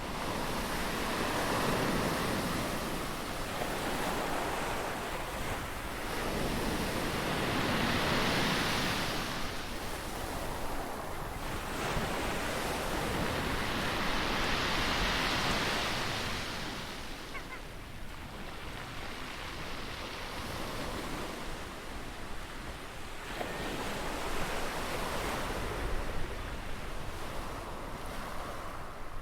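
Ocean surf breaking and washing ashore, the rush of water swelling and fading in slow surges several seconds apart.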